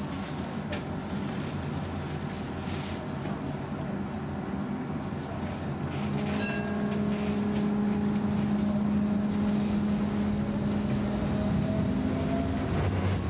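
Göteborg M31 tram pulling away from a stop. About halfway through a steady low electric hum sets in and the running noise grows louder, and near the end a higher whine rises in pitch as the tram gathers speed. A few sharp clicks are heard before it moves off.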